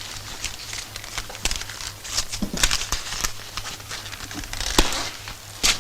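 Scattered rustles and small knocks over the steady low hum and crackle of an old film soundtrack.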